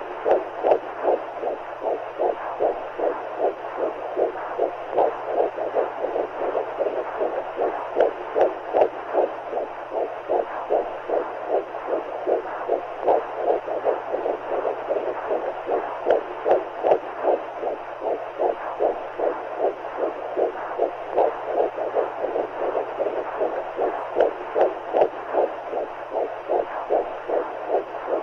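Womb-sound white noise for babies: a steady whooshing hiss like fluid flowing, with a heartbeat pulsing through it at about two to three beats a second.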